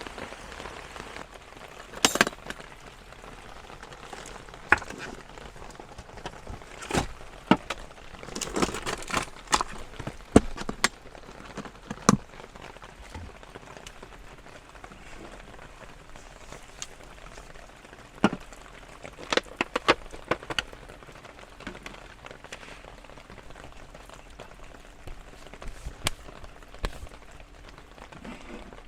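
Steady rain falling, with sharp taps and knocks at irregular intervals, several coming in quick clusters.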